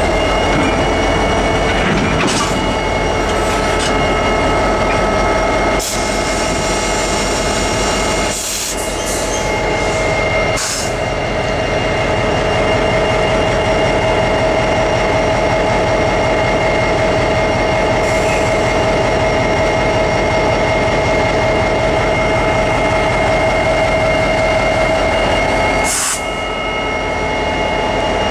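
Norfolk Southern SD40E diesel locomotive's EMD two-stroke engine running loud at close range: a dense, steady rumble with a high whine held over it. The sound jumps abruptly a few times.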